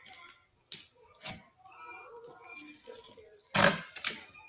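Slime being kneaded and folded by hand, a blue slime pressed into a large green batch: wet squelching with sharp clicks and pops of trapped air, and a louder run of crackling pops near the end.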